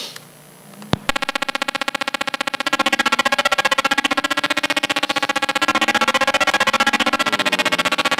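Synthesized sound generated from a fractal image by the SoundFumble plug-in for GIMP. It starts with a click about a second in. It then becomes a buzzy chord of many tones, chopped into a rapid, even pulse: the fractal's proportions rendered as rhythm.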